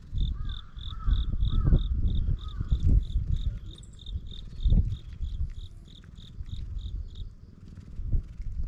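An insect chirping in an even rhythm of high pulses, about three to four a second, stopping shortly before the end. Underneath is irregular low rumbling noise on the microphone, loudest in the first few seconds.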